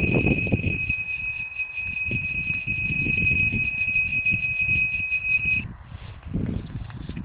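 Wind buffeting the microphone, with a steady high-pitched whistling tone held at one pitch that cuts off suddenly about five and a half seconds in.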